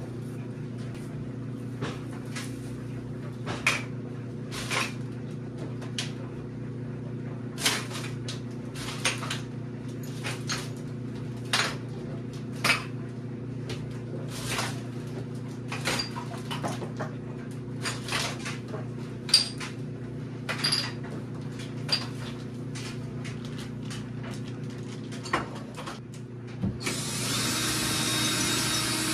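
Items being lifted off a wooden wall shelf and set down, a long series of sharp clacks and knocks about once a second over a steady low hum. Near the end a cordless drill starts whirring, taking the shelf's screws out.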